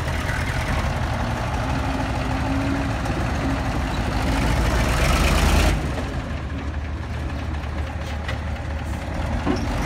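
Diesel dump truck engine running as the truck pulls away slowly, the revs building for the first few seconds and then dropping off suddenly a little before six seconds in.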